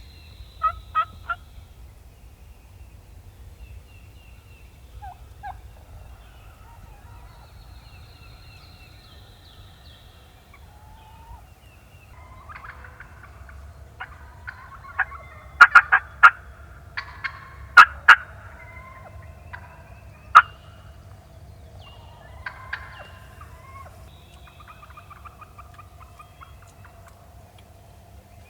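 Wild turkey gobblers gobbling repeatedly about 150 to 200 yards off, at least two birds, in a cluster of bursts through the second half. Faint small-bird chirps are heard between the gobbles.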